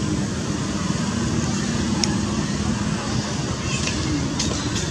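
Steady outdoor background noise, with faint voices in the distance and a few soft clicks.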